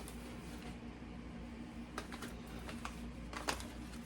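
Light clicks and taps of small containers and packets being handled and set down on a shelf, a few scattered knocks mostly in the second half, over a steady low hum.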